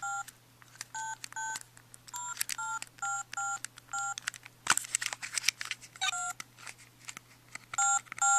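Toy cell phone keypad being dialed: about ten short two-tone beeps, one for each key press, each with a click. About halfway there is a pause of a couple of seconds filled with clicks and handling.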